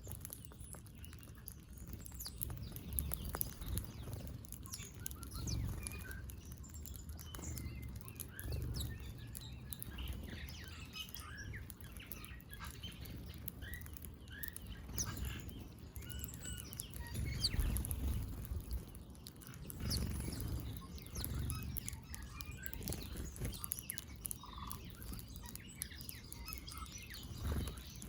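Small birds chirping and tweeting in short scattered calls while feeding, over a low, uneven rumble.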